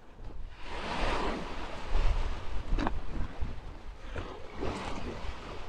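Small waves washing in on a shingle beach, swelling and fading, with wind buffeting the microphone.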